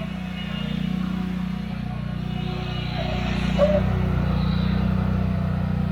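Small engine of lawn machinery running steadily with a constant low hum. A brief short tone comes about three and a half seconds in.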